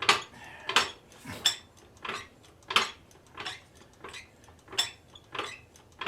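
Car jack worked by hand, one sharp metallic clack with each stroke of the handle, about three every two seconds.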